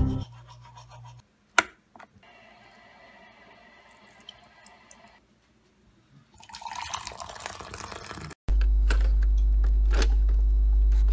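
Liquid poured into a ceramic mug, a splashing fill lasting about two seconds just past halfway. It is followed by a loud steady electronic hum with crackles from a 'please stand by' TV-glitch effect, which runs to the end.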